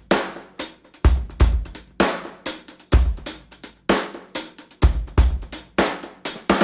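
Background music: a drum-kit beat, a deep kick drum about once a second with snare and hi-hat hits between.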